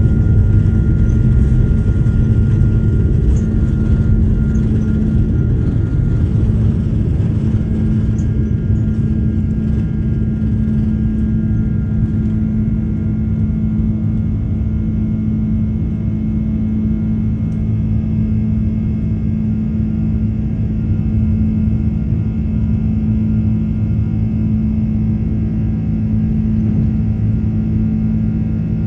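Cabin noise of a jet airliner at takeoff thrust: a steady engine drone over a heavy rumble through the end of the takeoff roll, lift-off and initial climb. A higher tone fades out about six seconds in, and the rumble eases a little as the plane climbs.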